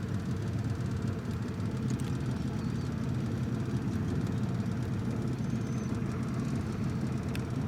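A steady low rumble of open-air ambience runs throughout, with a few faint high chirps and a couple of small clicks over it.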